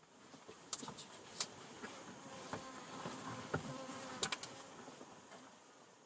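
Insects buzzing over a soft outdoor hiss, with several sharp ticks scattered through it; the loudest comes about a second and a half in, and two close together come near four seconds.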